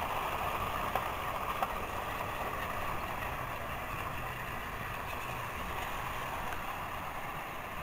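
Battery-powered Trackmaster toy trains running on plastic track: a steady whir of their small motors and wheels, with a couple of light clicks about a second in.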